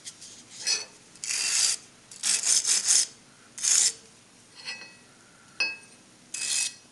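Stiff hand brush scrubbing the welded joint of a cast aluminium part in short, separate strokes, with a quick run of four about two seconds in. A sharp metallic click comes about five and a half seconds in.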